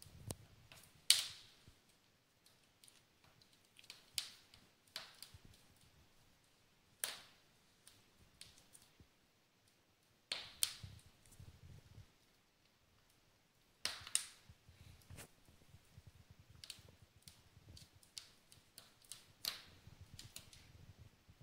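Fire in a fireplace crackling, with irregular sharp pops and clicks every second or so, a few much louder than the rest.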